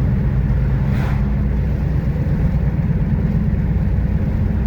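A car's steady, loud low rumble, with a brief rushing swell about a second in.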